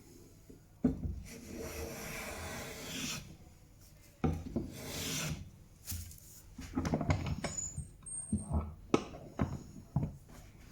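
Freshly sharpened hand plane taking shavings along a hardwood leg to taper it: two long strokes starting about one and four seconds in, then a run of shorter strokes and knocks.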